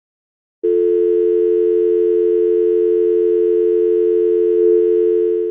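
Telephone dial tone: a steady, unbroken hum of two close notes, starting about half a second in and fading near the end. The line has gone dead after the other party hung up.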